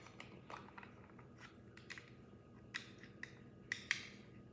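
A few faint, scattered plastic clicks of a GAN 13 MagLev magnetic speedcube being turned and handled.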